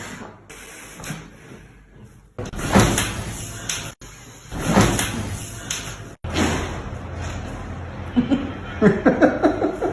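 Joints cracking during chiropractic spinal and neck manipulations, with sharp loud pops a little under three seconds in and again near five seconds. A person's voice follows near the end.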